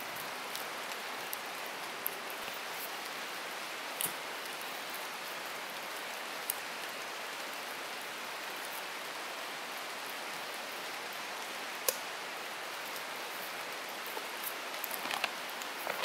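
Steady rain falling on the forest, an even hiss. A few sharp single clicks are heard, and near the end comes a quick run of light knocks and rattles as a folding camp chair is folded up.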